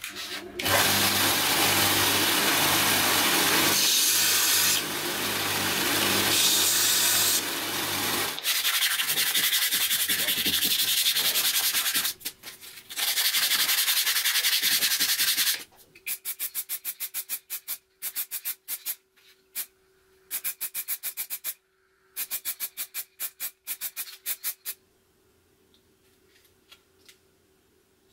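Belt sander running with a wooden knife handle pressed against the belt, a steady grinding for about eight seconds. Then the handle is sanded by hand with sandpaper, ending in quick back-and-forth strokes about four a second that stop a few seconds before the end.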